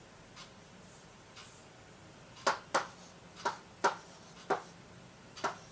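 Stylus tip tapping against the glass of an interactive display board while writing: a few faint ticks, then six sharp clicks at uneven intervals over the last three seconds.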